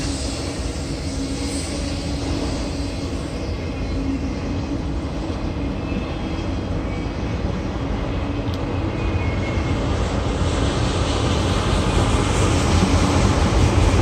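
Autorack freight cars rolling past with a steady rumble of wheels on rail, getting louder near the end.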